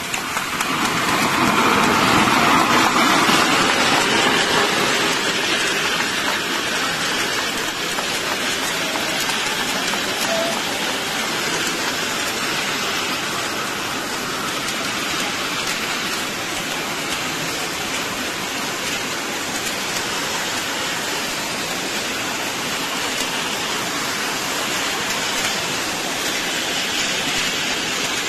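Steady hiss of a party spray-effect fountain showering sparkling particles, loudest in the first few seconds and then even.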